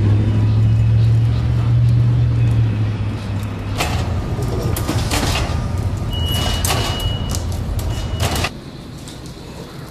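A heavy vehicle's engine running close by in street traffic, a low steady rumble. Then a loaded two-wheeled hand cart knocking down concrete subway steps, a string of sharp clunks over about four seconds with a thin high squeal partway through, cutting off suddenly near the end.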